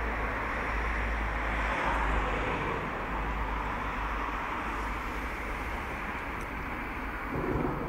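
Steady city street traffic noise with a low rumble underneath and a brief louder swell near the end.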